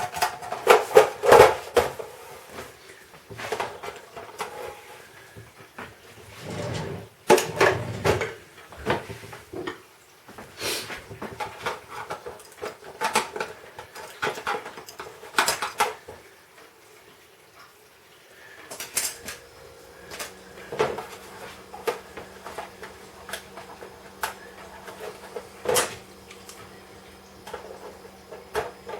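Clicks, knocks and rattles of a wall clock being taken apart by hand, as small parts are pulled off, handled and set down.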